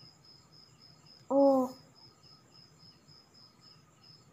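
A cricket chirping steadily in the background, an even train of faint high chirps at about three a second. About a second and a half in, a voice says the letter "O" once, the loudest sound.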